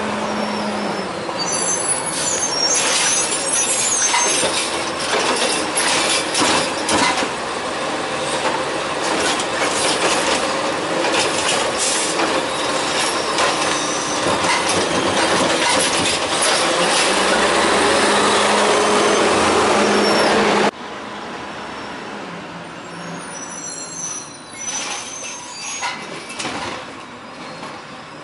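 CCC LET2 garbage truck with a Heil Rapid Rail automated side-loading arm working: engine running, with clattering and knocks as the arm grabs and dumps carts. About two-thirds of the way through, the sound drops suddenly to a quieter, farther truck with scattered clicks and knocks.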